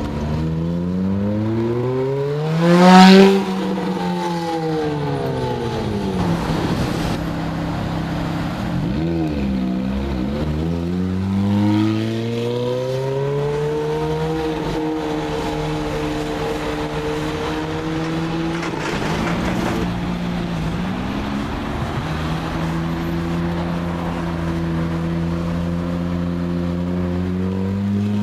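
Ferrari F430's V8 engine accelerating and driving by. The pitch climbs to a loud high rev about three seconds in, then falls. It dips and climbs again a few more times before settling into a steady run.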